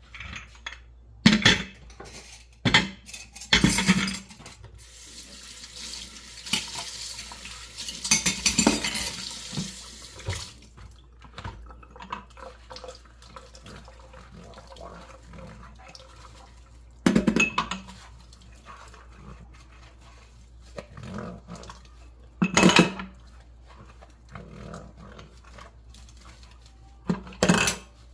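Dishes and cutlery being washed by hand in a kitchen sink: scattered clatters of crockery and utensils, with the tap running for about five seconds early on.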